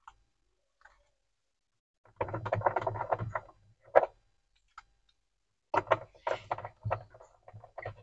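Hard plastic clicking and rattling as hands work the latches of a refrigerator's interior lamp cover. It starts about two seconds in, has one sharp snap about four seconds in, and ends in a quick run of clicks and knocks.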